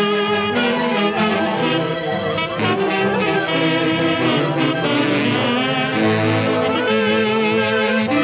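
Saxophone section of an Andean orquesta típica playing a tunantada melody together, unbroken and loud.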